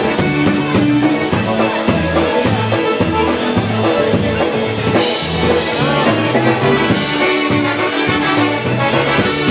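Live polka band playing an instrumental passage, trumpets leading over a steady, even bass beat.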